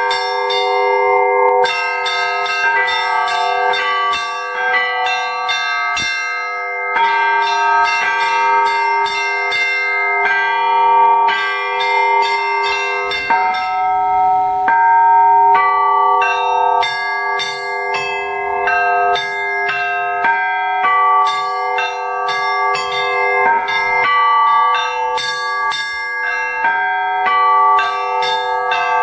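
Russian Orthodox church bells rung together in a full peal: rapid strokes on the small high bells over the sustained ringing of the larger bells. These are the church's newly consecrated bells. The strokes thin out briefly about halfway through, then resume.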